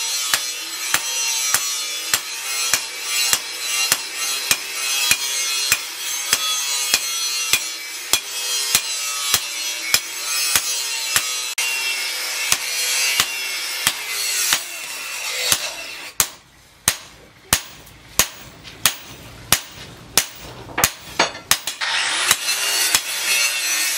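Hand hammer striking a hot steel blade cut from a tractor disc plough against a steel-post anvil. The sharp metal-on-metal blows come in a steady rhythm, a little under two a second.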